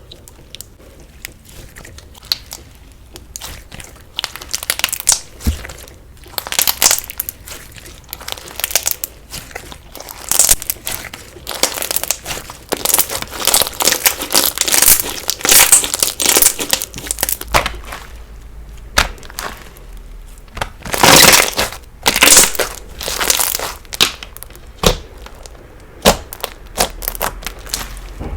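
Slime being squeezed and pressed by hand, crunching and crackling in repeated bursts. It is quiet for the first few seconds, and the loudest crackling comes about three-quarters of the way through.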